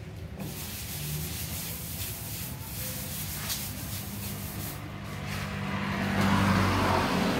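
Hand rubbing over the painted rear side panel of a car, a scratchy, uneven swishing. A steady low engine-like hum runs underneath and swells louder near the end.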